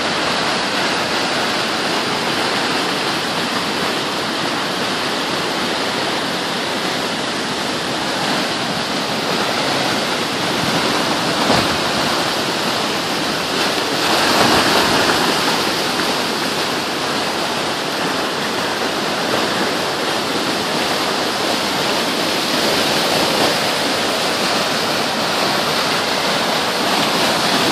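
Four Mile Creek in flood: muddy whitewater rushing steadily over and along a paved bike path, briefly louder about halfway through.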